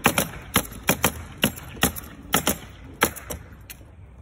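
Pneumatic nailer firing into roofing felt paper on a wooden roof deck: about a dozen sharp shots in quick, uneven succession, two to three a second, each with a short hiss of air.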